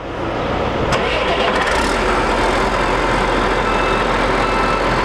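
Engine starting and then running steadily, with a sharp click about a second in.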